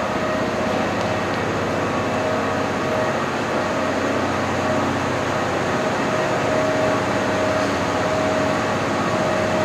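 Steady running drone of a sleeper-train power car's diesel generator sets (Kaya 27) idling at a standstill, with a droning tone that comes and goes over a constant mechanical hum.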